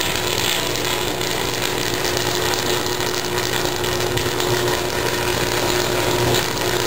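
Uncontrolled high-voltage fault arc burning continuously in a power substation: a loud, steady buzzing crackle with a low electrical hum running under it.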